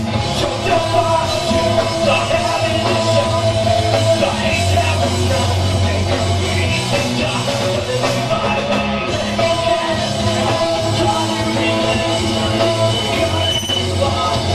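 Rock band playing live, loud and without a break, with singing over the instruments.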